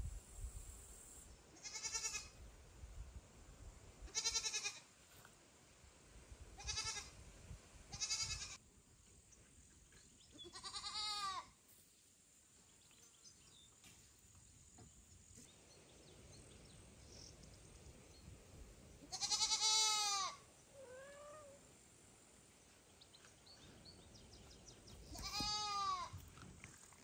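A kitten meowing loudly again and again: about eight high-pitched calls that rise and fall in pitch, a few seconds apart, some short and a few longer and louder.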